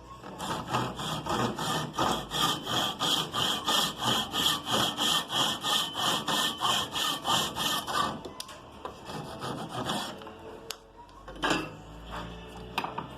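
Hand saw cutting wood in quick, regular back-and-forth strokes, cutting the shoulder of a half-lap joint; the sawing stops about eight seconds in, followed by a few knocks as the wood is handled.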